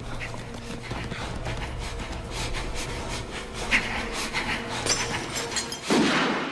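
Sound effects for a radio drama's opening: a dense run of irregular clicks and knocks over a low, steady drone, ending in a loud, breathy rush of noise about six seconds in.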